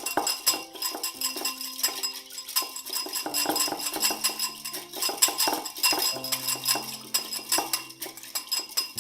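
Light background music with held notes and a jingling, tambourine-like beat, over clinking of utensils against dishes.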